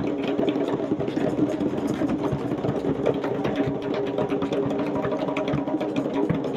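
A group of Nyabinghi drums played together: a large bass drum with smaller hand drums and djembes. They keep up a dense, rapid, steady run of strokes with no break.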